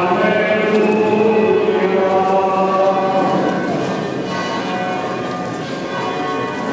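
Church bells ringing together with voices singing. The sound is strongest for the first three seconds or so, then eases off somewhat.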